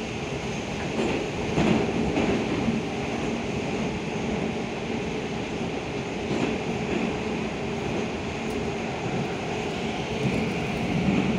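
Cabin noise of an 81-725.1 'Baltiets' metro car running at speed through a tunnel: a steady rumble and rush of wheels on rails with a faint steady hum, and a few sharper knocks.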